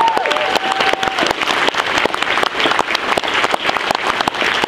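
Large audience applauding, a dense and steady clapping from many hands.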